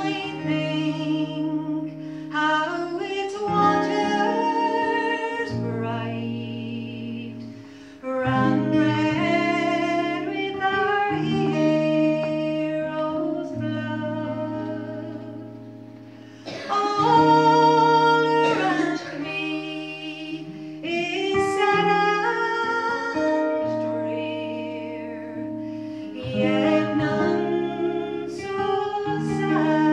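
A woman singing a slow ballad to acoustic guitar, in long phrases with held notes and vibrato, each phrase swelling and then fading away.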